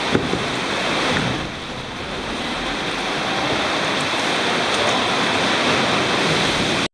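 Seawater surging and washing against the rock inside a sea cave, a steady rushing noise, with one brief knock just after the start.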